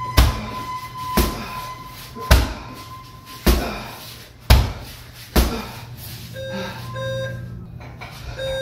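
Kicks and punches thudding into an Everlast heavy bag, roughly one strike a second. In the second half a gym interval timer gives a few short beeps as the round runs out.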